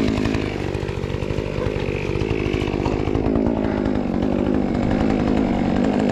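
Two-stroke chainsaw running at idle, not cutting, its engine pitch dipping and recovering a couple of times.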